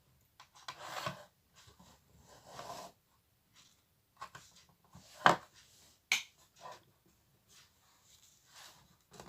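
Small clicks and knocks of a charger cable being handled and plugged into a Bluetooth speaker's charging jack, the loudest click about five seconds in, with soft rustling between.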